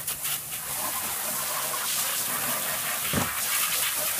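Garden hose spray jetting water into a tipped-over wheelbarrow tray, washing dirt out: a steady hissing spray spattering off the tray. A brief low thud about three seconds in.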